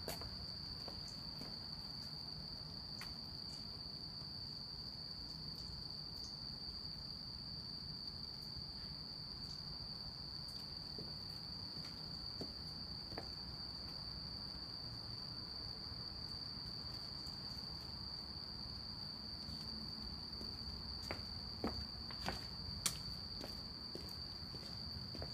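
Crickets chirring in a steady, unbroken high-pitched chorus at one even pitch. A few light clicks sound near the end.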